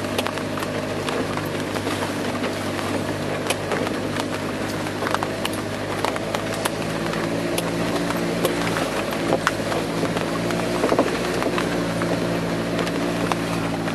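Four-wheel-drive jeep's engine running steadily under load, heard from inside the cabin, with frequent short knocks and rattles as it drives over a rough dirt track. Water sprays up onto the windscreen as it drives through water.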